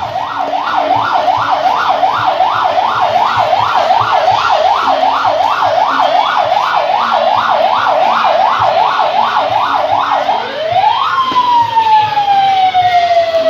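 Electronic siren in a fast yelp, its pitch sweeping up and down about two and a half times a second. About ten seconds in it switches to one rise followed by a long, slowly falling tone.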